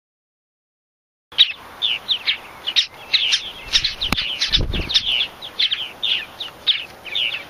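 Purple martin nestlings begging with rapid, high chirps, starting about a second in, while a parent comes to the gourd entrance to feed them. A brief click and a short low thump and rustle come about halfway through.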